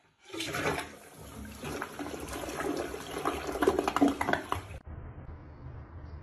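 Toilet flushing: water rushing and swirling loudly down the bowl. It cuts off suddenly about three-quarters of the way through.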